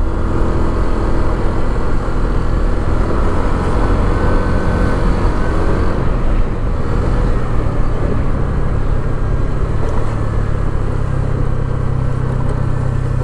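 Motor scooter engine running while riding, with wind and road noise. The engine note eases slightly lower over the first half, then holds steady.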